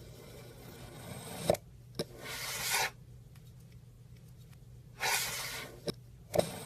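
Kinetic sand being scraped and cut by a tool: a scrape that builds, two sharp taps, and a louder scrape that stops suddenly. The same sequence then plays backwards, the scrape starting abruptly and fading away before the two taps.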